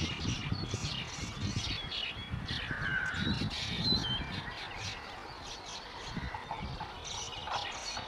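Baya weavers chirping and chattering in many short, quick calls, with a lower call about three seconds in and a low rumble underneath.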